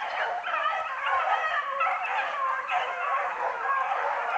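A pack of beagles baying, with many overlapping voices in a continuous chorus, as hounds do when running a rabbit's track.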